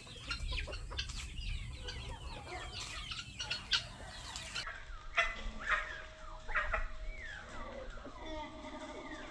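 A flock of chickens clucking and calling, many short overlapping calls, some falling in pitch. A low rumble runs under the first half, and the sound changes suddenly about halfway through.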